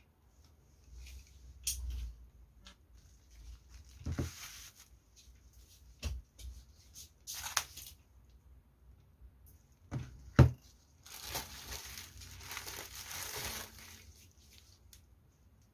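Parcel packaging handled and opened by hand: wrapping crinkling and tearing, with scattered clicks and knocks, the loudest a sharp knock about ten seconds in, followed by a few seconds of rustling.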